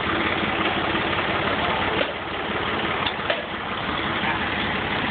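Ford L8000 truck's engine idling steadily, with a fast, even low throb.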